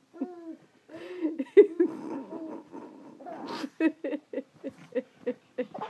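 A baby vocalising: drawn-out babbling calls that slide up and down in pitch, then a quick run of short, giggle-like sounds, about four a second, in the last two seconds.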